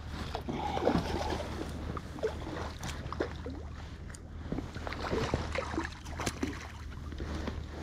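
A hooked rainbow trout splashing and thrashing in the lake water at the surface as it is drawn toward a landing net. Scattered knocks and rustles sound close by, over a steady low rumble.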